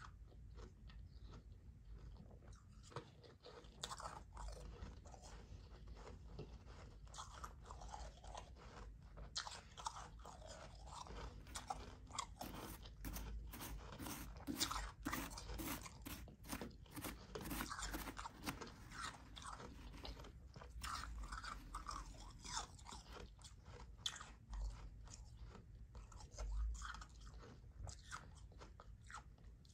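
Close-miked chewing of soft, powdery ice: a steady run of fine crunching crackles that grows densest midway.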